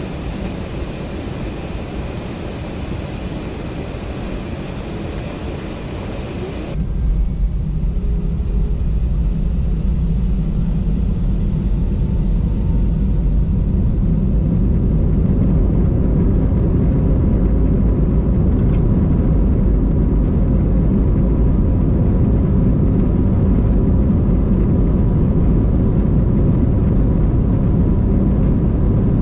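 Airbus A320 cabin noise: a steady hum with a faint high whine while the aircraft is pushed back. About seven seconds in an abrupt cut brings a louder, deep rumble of the engines and wheels as the aircraft rolls on the ground, rising slightly and then holding steady.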